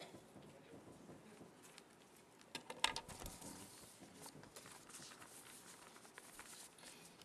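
Sheets of paper handled and shuffled on a lectern: faint rustling and small taps, with a brief cluster of louder clicks about three seconds in.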